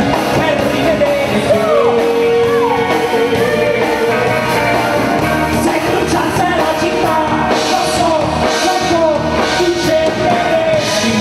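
Live pop-rock band playing, with a male lead singer singing over drums and electric bass.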